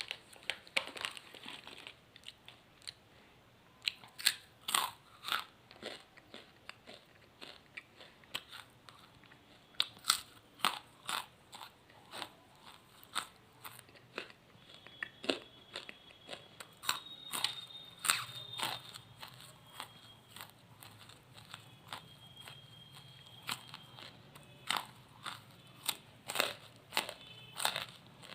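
A person biting and chewing charcoal, with many irregular sharp crunches.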